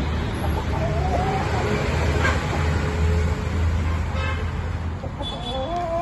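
Columbian Brahma chickens clucking, a few short wavering calls, over a steady low hum.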